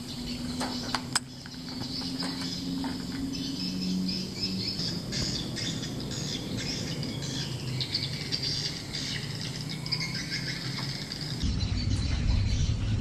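Outdoor ambience with high, busy chirping from birds or insects, a few sharp clicks in the first second or so, and a low rumble that comes in near the end.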